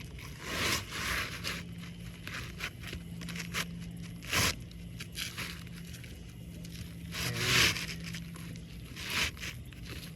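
Asphalt roofing shingles being handled, with a few short bursts of scraping and rustling over a steady low hum.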